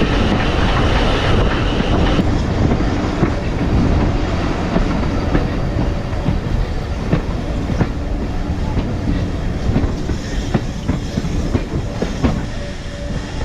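Steam-hauled heritage train running along the track: a steady rumble with the clickety-clack of the wheels over the rail joints, easing slightly near the end.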